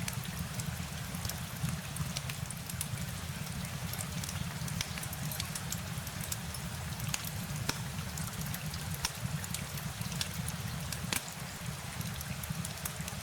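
Steady rain with a low rumble beneath, and many scattered sharp ticks of single drops striking a surface.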